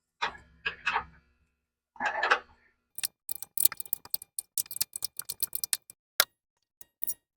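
Rapid runs of metallic clicking from a 13 mm ratcheting wrench working the emergency brake cable hanger bolt loose, starting about three seconds in after a few duller handling sounds.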